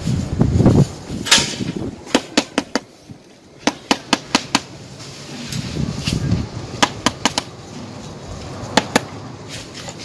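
Runs of sharp knocks, four or five at a time at about five a second, with a low scraping rub between them from a mould drawn along wet sand-and-cement render.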